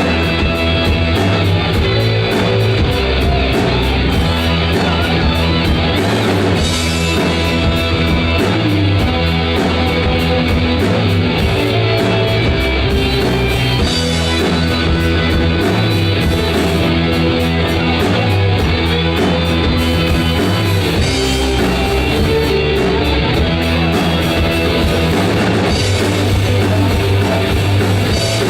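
Rock music with guitar over a steady drum-kit beat, heavy-metal in style, playing loud and continuous.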